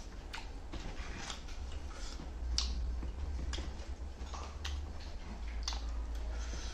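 Close-miked eating sounds: chewing with wet mouth clicks and lip smacks, sharp and irregular, roughly once a second, over a steady low hum.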